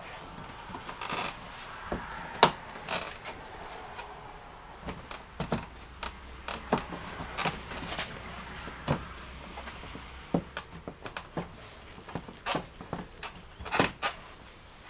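Plastic lower front bumper section of a 2018 Jeep Grand Cherokee being pushed into place by hand, its clips clicking into the holes in the upper bumper: a string of irregular clicks and knocks, the sharpest about two and a half seconds in.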